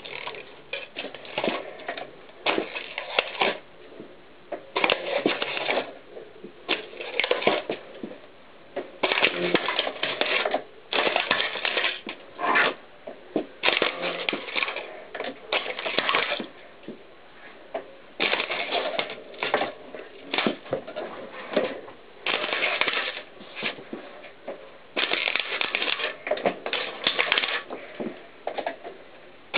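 Plastic VHS videotape cassettes cracking and crunching under a mountain bike's knobby tyre as it rolls over them again and again, in irregular bursts of crackling, one or two a second.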